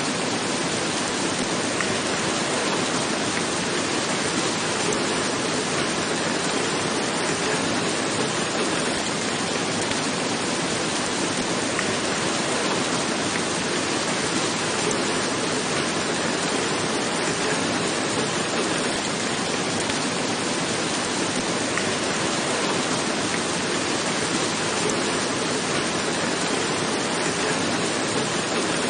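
Steady heavy rain falling on a roof, a dense even hiss of drops without let-up.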